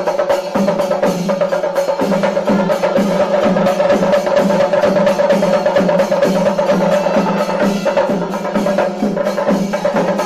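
Background music of fast, steady drumming over a held, sustained tone.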